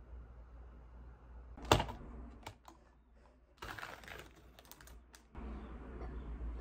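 Everyday tapping and clicking: one sharp loud click, a few lighter ones, then a stretch of dense clattering, with a low hum setting in near the end.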